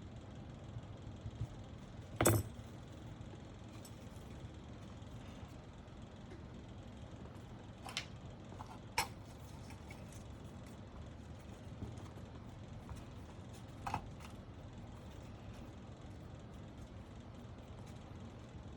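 A few short, sharp clicks and taps from handling small keyboard-build parts and tools on a desk, the loudest about two seconds in, over a steady low hum.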